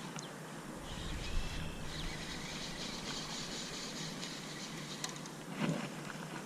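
Outdoor ambience: a steady wash of wind noise with faint bird chirps and a few light ticks.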